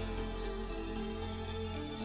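Background music with long held notes that change about two seconds in.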